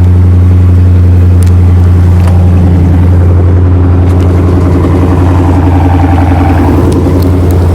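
Dodge Charger Scat Pack's 6.4-litre (392) HEMI V8 idling steadily and loudly through a muffler-delete exhaust that keeps the factory resonators and catalytic converters, shortly after a mild cold start.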